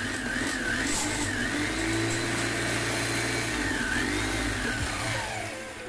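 Makita HM0810 5 kg electric demolition breaker running with no load on a test run after a crankshaft replacement and fresh greasing, its motor whine wavering slightly, then winding down near the end.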